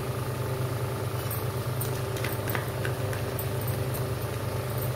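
Steady low machine hum, with a few faint light taps of a wooden spatula against a nonstick frying pan a little after two seconds in.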